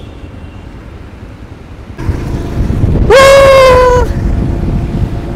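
Wind and road rumble on a motorcycle, which gets louder about two seconds in as the bike speeds up. A vehicle horn then sounds once for about a second: one steady, loud tone that bends up slightly as it starts.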